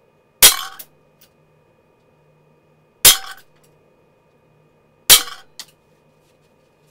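Umarex Smith & Wesson 586 .177 CO2 pellet revolver with a 6-inch barrel firing three shots, the second about two and a half seconds after the first and the third two seconds later. Each shot is a sharp crack followed within half a second by a fainter click.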